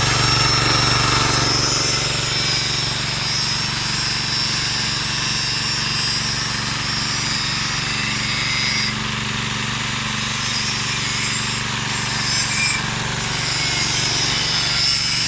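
Small gasoline engine with a built-in generator running steadily under electrical load, with an electric power tool running off it, its high rasp over the engine's drone. The rasp dips briefly twice in the second half.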